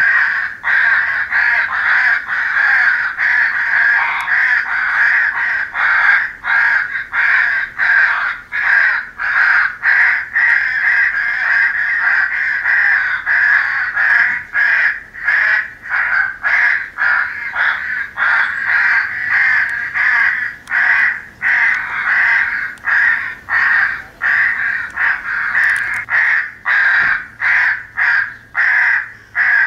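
A recorded flock of crows cawing without a break, overlapping caws at about two a second, as used for a crow-hunting electronic game call.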